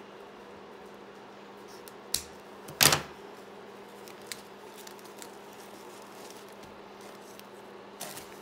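A sharp click about two seconds in and a louder short clatter just after: scissors snipping through twine and being laid down on the tabletop. A few faint ticks and rustles follow as the twine is pulled off the old paper folder.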